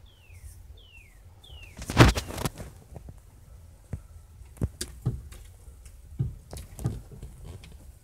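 Male northern cardinal whistling three falling notes, then a loud thump about two seconds in followed by scattered taps and knocks as the bird strikes and pecks at the car's side mirror and window.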